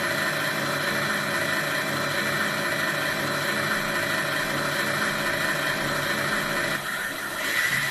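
RC truck sound module playing a simulated DAF XF 480 diesel engine, running steadily, with a short dip and change in the sound near the end.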